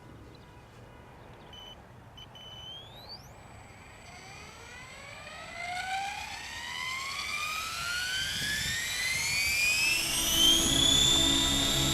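Miniature Aircraft Furion 6 electric RC helicopter spooling up: the motor whine rises steadily in pitch and loudness over several seconds, then levels off near the end at flying speed, joined by a steady low rotor hum.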